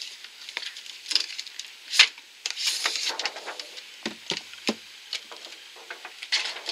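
A cardboard gift box being handled and opened: rustling and scraping with scattered taps, and a sharp knock about two seconds in.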